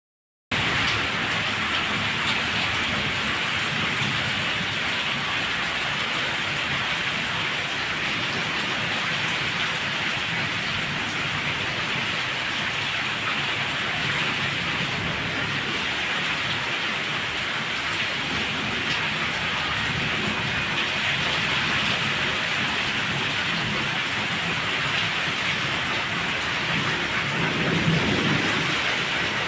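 Heavy monsoon rain pouring down steadily in a constant loud hiss. A low rumble swells briefly near the end.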